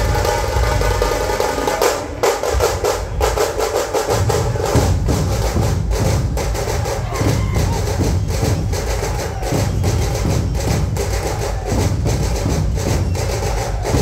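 Dhol-tasha ensemble drumming: rapid, sharp stick strokes on tasha drums over the deep beats of large dhol barrel drums, the low drumming growing heavier about four seconds in.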